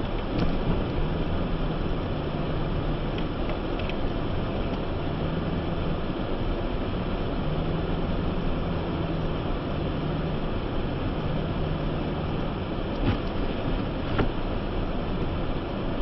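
Steady road and engine noise of a car being driven, with a low hum that comes and goes and two faint clicks near the end.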